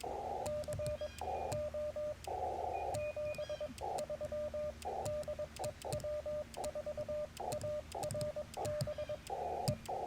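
Morse code sent on a Yaesu FT-891 transceiver: its steady mid-pitched sidetone keyed in dots and dashes, with the receiver's hiss cutting back in during the gaps between characters (break-in keying), and light clicks from the paddle key.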